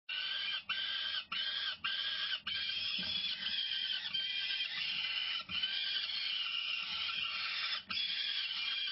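Peregrine falcon chicks food-begging at the nest with harsh, repeated squealing calls. At first the calls are separate, about one every half-second or so; after a couple of seconds they run together into almost continuous calling.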